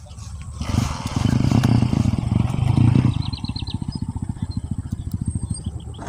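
A small engine puttering, loudest in the first half, then settling into a fast, steady low pulse. Brief runs of high bird chirps come through partway in.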